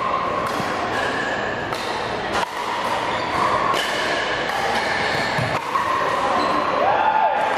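A pickleball rally: paddles strike the plastic ball in sharp pops, several of them about a second or so apart, with short squeaks of shoes on a hardwood gym floor in between.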